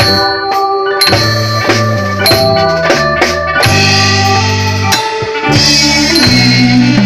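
Nang talung shadow-puppet theatre music: drum strokes over sustained melodic notes and a held low bass line.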